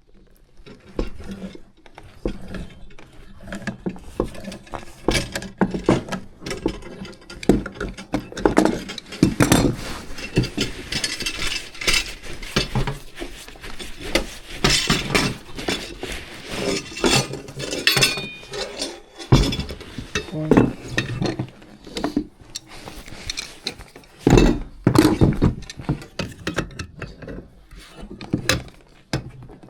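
Metal hand tools and fittings clinking, knocking and rattling in irregular bursts during hands-on work on a furnace's gas valve and piping.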